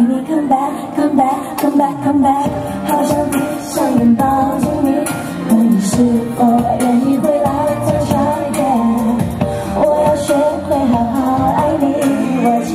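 A woman singing a pop song live into a handheld microphone over a recorded backing track.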